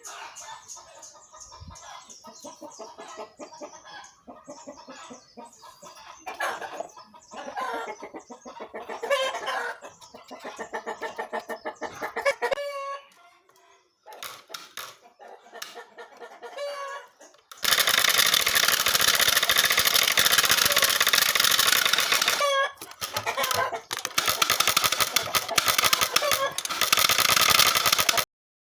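A plastic-bottle flap silencer on a bicycle rattling against the spokes of the spinning wheel, a rapid clicking clatter imitating a motorbike's exhaust note. It quickens in fits during the first half, pauses briefly, then runs as a loud, dense buzz from about two-thirds in.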